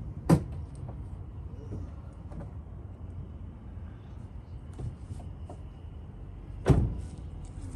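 Two heavy thumps about six and a half seconds apart, over a steady low rumble.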